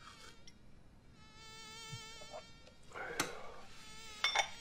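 A flying insect buzzing with a wavering pitch for about a second, followed by two sharp smacks, the second about a second after the first.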